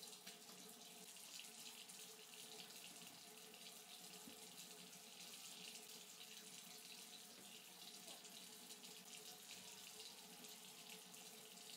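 Faint, steady hiss of running water.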